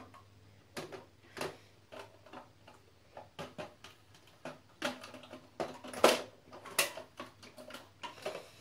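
Irregular clicks and knocks of hard plastic as toy cattle figures are put into the trailer of a Bruder toy cattle truck, with a few louder knocks about six to seven seconds in.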